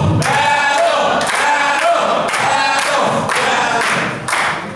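A group of voices chanting loudly together, in a sing-song way.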